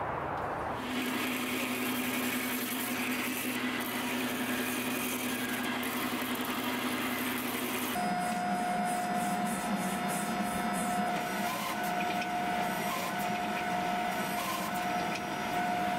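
A steady mechanical hum with a hiss over it. It holds one low tone and then switches abruptly to a higher tone about eight seconds in.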